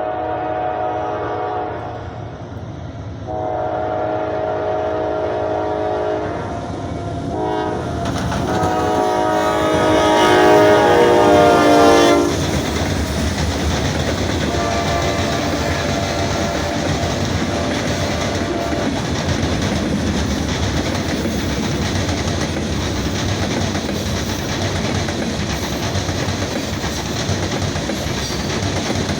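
A Norfolk Southern locomotive horn sounds the grade-crossing signal: two long blasts, a short one, then a long one that grows louder as the train approaches. The train then passes with a steady rumble and wheel clatter on the rails, and the horn sounds again more faintly.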